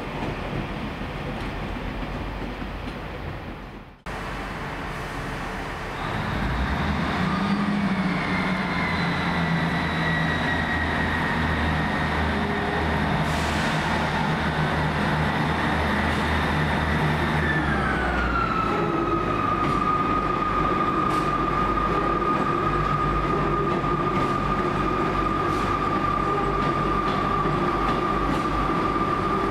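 A Northern class 158 diesel multiple unit pulling away: its diesel engines hum steadily under power. A high whine drops in pitch about eighteen seconds in, then holds. The first few seconds carry the fading noise of another train, which stops abruptly about four seconds in.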